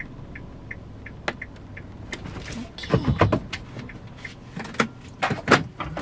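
Inside a Kia Ray being parked: faint short beeps about three a second for the first two seconds, then a run of sharp clicks and knocks as the driver handles the controls, over a low steady engine hum.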